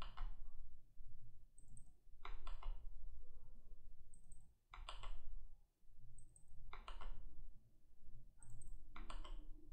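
Computer keyboard typing: four short bursts of quick keystrokes, about two seconds apart, as a word is typed over in each line, with a faint low hum beneath.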